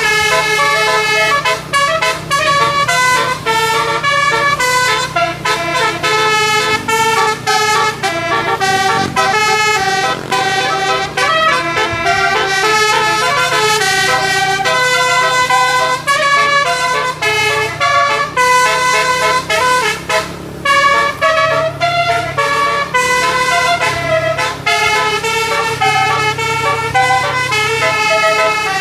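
A bus's 12-note basuri 'telolet' horn playing a long, fast melody of stepping notes without pause, over a steady low hum.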